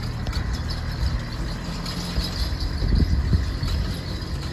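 Small pickup truck's engine running at low speed as it pulls away, a steady low hum with a couple of low thuds about three seconds in.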